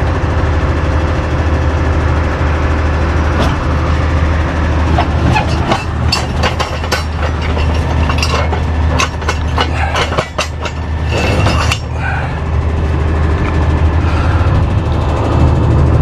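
Tow truck engine idling with a steady low drone. From about four to twelve seconds in, metal parts clank and rattle over it in quick irregular strikes.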